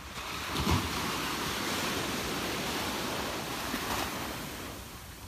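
Small ocean waves breaking and washing up the sand: a steady hiss of surf that swells just after the start and eases near the end.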